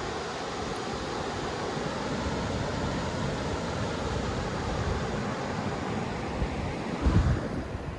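Ocean surf washing steadily, with wind buffeting the microphone, hardest near the end.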